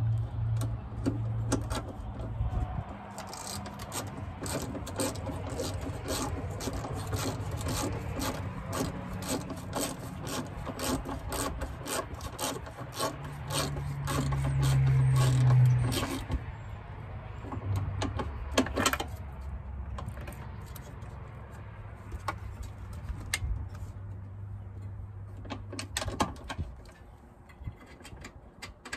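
Socket ratchet clicking in quick runs as a bolt at the top of a newly fitted aluminium radiator is turned, with pauses between runs. A low steady hum sits underneath and swells for a few seconds about halfway through.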